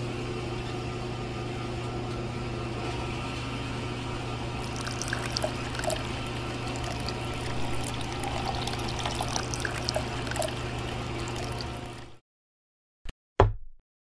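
Small electric motor of a miniature home-made water pump switched on, running with a steady hum, with water splashing and trickling along with it from about five seconds in. The hum cuts off suddenly near the end, followed by two short knocks.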